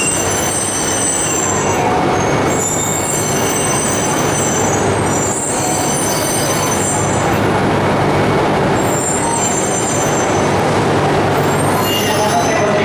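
Shinkansen trains at the platform: a steady hum and rumbling hiss, with a high squeal that comes and goes several times.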